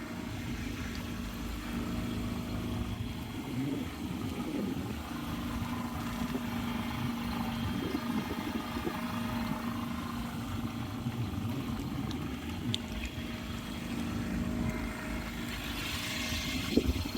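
Small passenger motorboat's engine running at a steady pace, a constant hum under the noise of the boat moving through the water.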